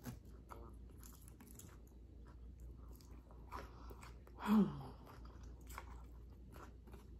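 Close-miked chewing of a Caesar salad with croutons: many small, crisp crunches in quick succession. About four and a half seconds in, a short hummed 'mm' that falls in pitch comes from the eater and is the loudest moment.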